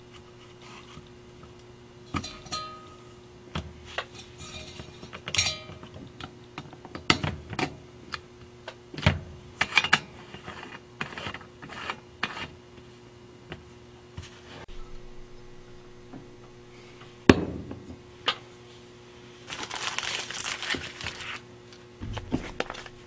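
Hands fitting parts onto a brass lamp: a candle sleeve and a flame-shaped bulb going onto the socket, with scattered clicks, taps and scrapes and one sharp knock about three-quarters of the way in. A couple of seconds of rustling come near the end, over a steady low hum.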